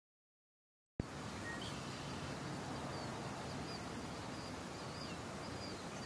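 Silent for about a second, then an outdoor nature ambience starts abruptly: a steady hiss with a string of faint, short, high bird chirps.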